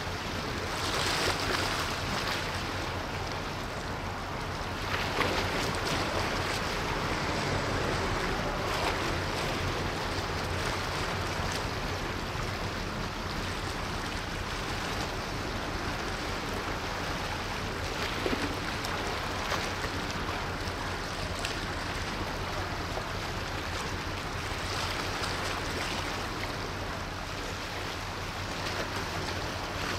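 A ship under way on open water: a steady wash of water and wind with a faint low, even engine drone underneath.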